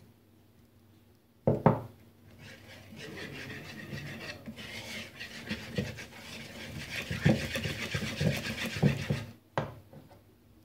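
Wire whisk beating flour into egg batter in a wooden bowl: a fast, rhythmic scraping and rubbing against the bowl. A knock comes about a second and a half in, and another near the end.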